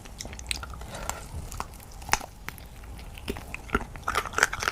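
A person chewing and biting a spicy braised snack of chicken feet and pickled mustard root, close to the microphone: irregular wet clicks and smacks, coming faster and louder near the end.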